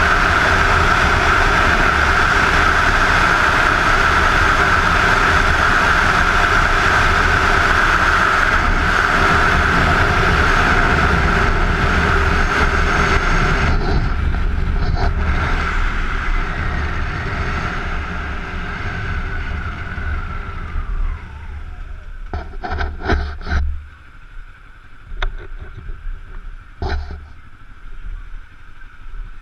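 Wind rushing over a helmet-mounted camera, with a Kawasaki Ninja 250's parallel-twin engine running at road speed. About two-thirds of the way through, the engine note falls away as the bike slows. The rest is quieter, broken by a few short bursts of noise.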